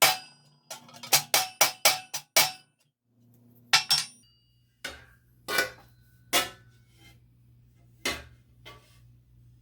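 Leather hammer striking steel armour held over a T-stake, knocking down dents: a quick run of about eight blows, two more a little later, then slower single blows, each with a short metallic ring.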